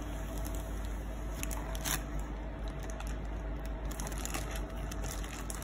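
Clear plastic bag wrapping rustling and crinkling as a boxed product is handled and lifted out of a cardboard carton, with one sharper crackle about two seconds in. A steady low hum runs underneath.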